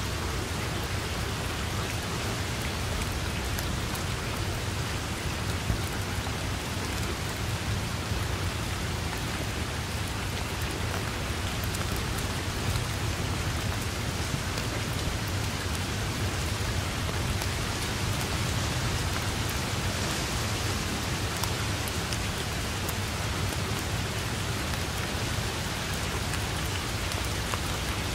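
Steady heavy rain falling on grass and foliage, a constant even hiss with scattered close drop ticks and a low steady rumble underneath.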